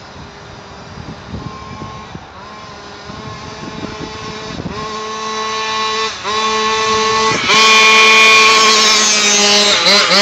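GoPed gas scooter's small two-stroke engine running at high revs as it approaches, growing steadily louder and loudest in the last few seconds. The revs dip briefly a few times along the way.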